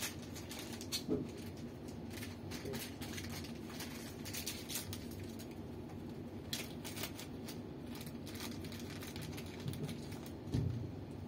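Scattered light clicks and rustles of a small plastic packet of screws being handled and opened, over a steady low room hum.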